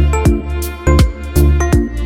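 Background music: an electronic pop track with a steady beat, deep booming kick drum and short bright plucked notes.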